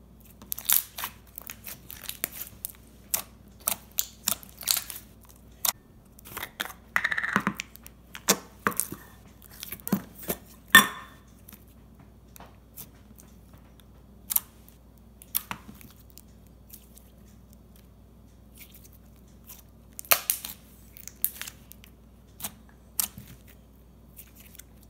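Hands squishing, folding, pressing and stretching glossy slime, giving a string of sharp clicks, pops and crackles. They come thick for the first ten seconds or so, thin out, then cluster again about twenty seconds in.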